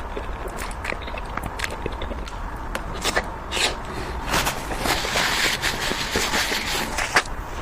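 Close-up eating sounds of sweets: sharp crisp bites and crunchy chewing, with scattered clicks at first and dense crackling through the second half.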